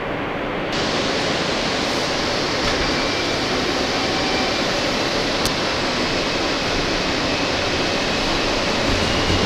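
Steady rushing noise inside an R160 subway car as the train gets under way after the doors close. A sharper hiss comes in about a second in, and there is a single faint click halfway through.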